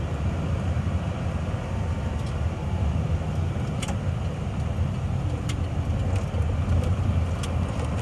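Vehicle engine and road noise heard from inside the cab while driving: a steady low rumble, with a few faint clicks or rattles.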